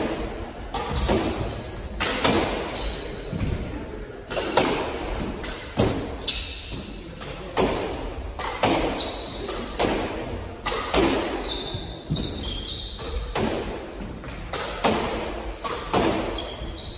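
Squash doubles rally: the rubber ball cracking off racquets and the court walls about once a second, ringing in the enclosed court, with short high squeaks of court shoes on the hardwood floor.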